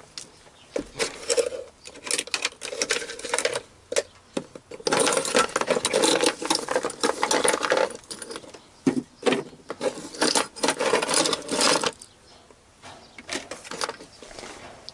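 Small metal parts and hand tools clinking and rattling as they are rummaged through and sorted in a box. There are scattered clinks, with a dense stretch of continuous rattling from about five to twelve seconds in.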